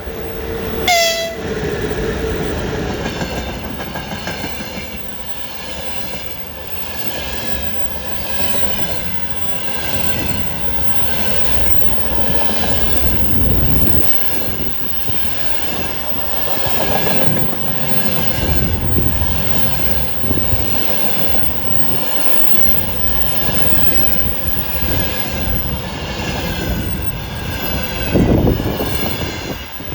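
A train passing close by the platform, with a short horn blast about a second in. The wheels and cars rush past steadily, with a repeating beat about once a second as the cars go by.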